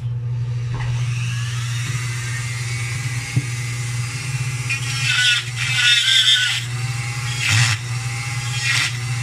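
Dremel rotary tool running steadily at a constant speed, its small bit grinding into a carved piece of wood. The grinding grows louder about five to six and a half seconds in and again briefly near the end, as the bit bites harder into the wood.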